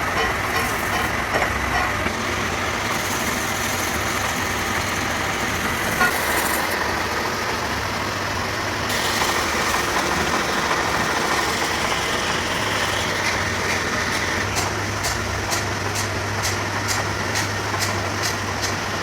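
Truck engine running steadily, with a row of light clicks near the end.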